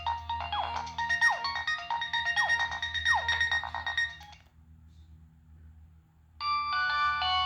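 Preloaded ringtones on a Nokia 6015i cell phone. A synthesized tune with several notes at once and repeated quick falling swoops stops about four seconds in. After a pause of about two seconds with only a faint low hum, the next ringtone starts with held chord notes.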